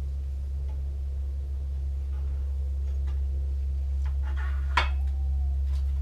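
Steady low hum throughout, with a light metal clink of bicycle headset parts about five seconds in that rings briefly.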